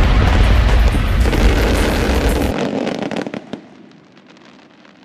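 Aerial firework shells bursting over loud music in a show finale. The music cuts off suddenly about halfway through, leaving crackling stars that fade away.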